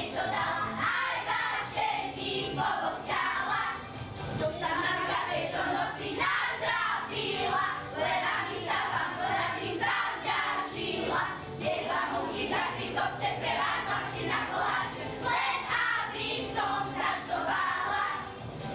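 A group of children singing a song together with musical accompaniment.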